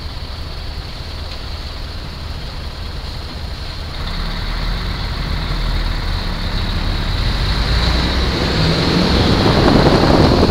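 Motorcycle engine idling in stopped traffic, then pulling away from about four seconds in, getting steadily louder as it moves off, with wind noise on the microphone building near the end.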